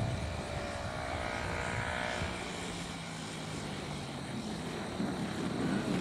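OS 160 two-stroke glow engine of a radio-control Yak at low throttle as the plane lands, a whine that fades after about two seconds into a low steady idle while it rolls out on the grass.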